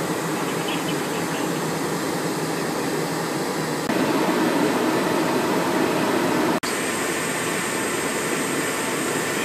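Steady jet aircraft noise on an airport ramp, heard from inside a Cessna Citation Encore's cockpit. It steps louder about four seconds in, then drops back after a brief drop-out about six and a half seconds in.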